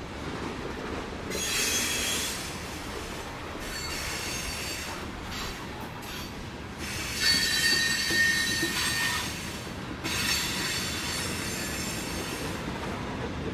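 Freight cars rolling past on steel rails, their wheels squealing in high-pitched spells that come and go, loudest about seven to nine seconds in.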